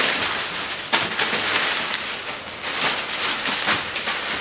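Packing material crinkling and rustling as it is handled and pulled out of an opened shipping box, with a sharp crackle about a second in.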